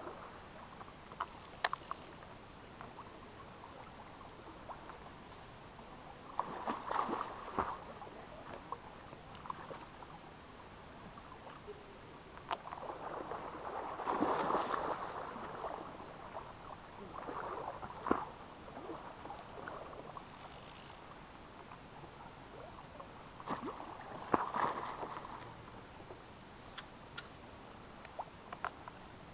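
River water running, with several louder splashes and sloshes now and then and a few sharp clicks.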